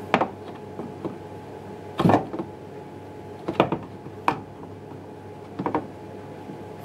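Sharp clicks and knocks, about six of them, some in quick pairs, from hands working the plastic locking lug of a washing machine shock absorber's bottom mount, squeezing it and pushing to free it from the base.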